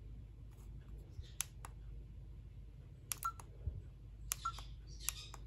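Faint, scattered clicks of a Coby Snapp CAM3001 pocket camera's buttons being pressed one at a time, about a dozen presses, most of them in the second half, as its settings are stepped through.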